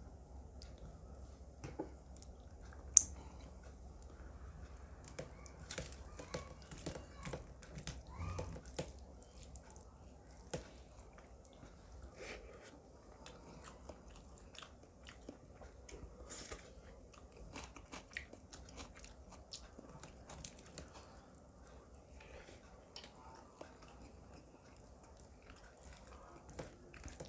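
Close-up eating sounds: chewing and smacking of chicken korma with rice, with occasional crunches of raw onion or salad. There are irregular wet clicks throughout, and one sharp click about three seconds in.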